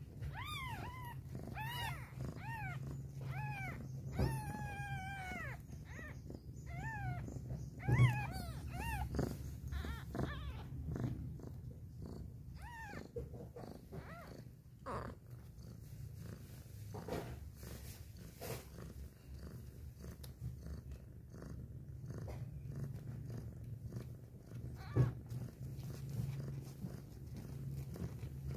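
Newborn kittens mewing in a run of short, high cries, about two a second, through roughly the first ten seconds as they jostle each other for a teat. Under them runs a steady cat purr, with a few soft knocks.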